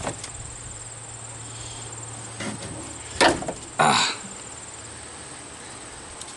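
Crickets chirping steadily in the background. Two sharp knocks a little after three seconds in, then a short, harsh crunching rasp just before four seconds, the loudest sound, from work on the truck's battery cable.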